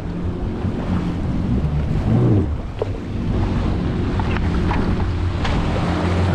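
Jet ski engine idling steadily, with wind buffeting the microphone and sea noise around it; a few light clicks about four to five seconds in.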